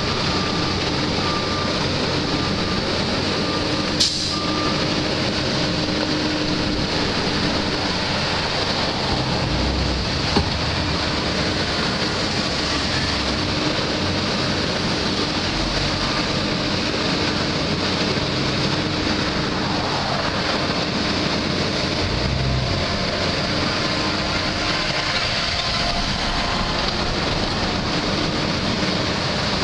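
Heavy diesel machinery running steadily: an asphalt paver and the dump truck it is pushing along as the truck feeds asphalt into its hopper. A sharp click sounds about four seconds in and another about ten seconds in.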